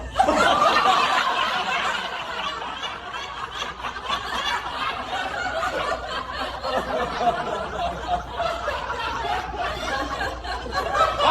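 People laughing and chuckling, loudest in the first couple of seconds.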